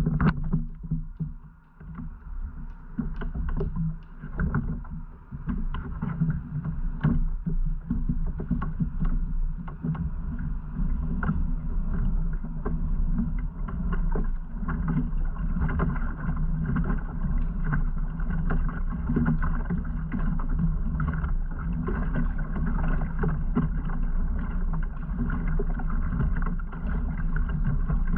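Kayak under way: a steady low rumble of water and hull noise with frequent small knocks. It starts uneven and settles into an even run after about ten seconds.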